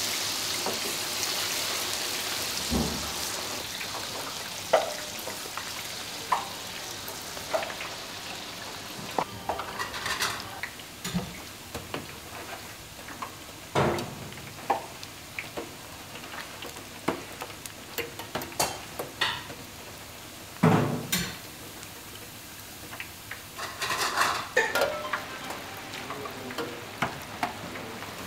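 Falafel deep-frying in a steel fryer of hot oil: a steady sizzle, loudest at the start, with scattered clicks and knocks of metal utensils against the fryer pan as the falafel are dropped in and stirred.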